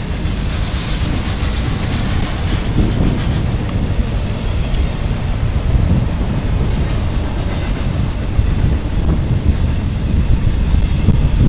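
Cars of a CSX intermodal freight train, trailer-carrying flatcars and container cars, rolling past on the near track: a steady, loud rumble of steel wheels on the rails.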